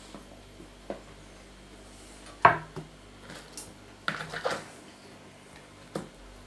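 Handfuls of sauerkraut being handled and dropped into plastic bowls, with a few sharp knocks of plastic bowls against the table. The loudest knock comes about two and a half seconds in, and a quick run of them about four seconds in.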